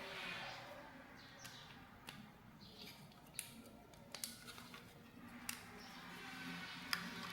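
Light, scattered clicks and taps of laptop components being handled during a drive swap, about six in all, the sharpest near the end.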